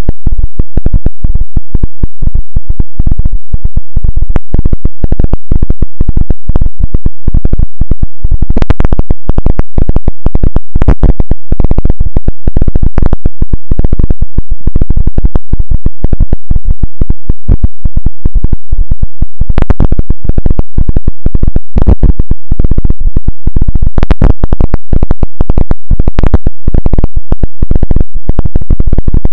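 Very loud, clipped, harsh crackling noise: a dense, unbroken stream of rapid clicks and pops.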